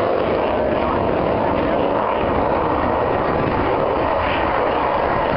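Display aircraft's engine noise, a steady loud rush with no marked rise or fall.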